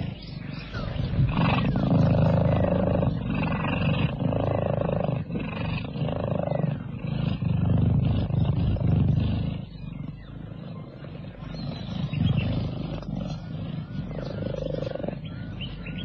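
Cheetahs purring: a low rumbling purr that swells and fades in breaths of a second or two.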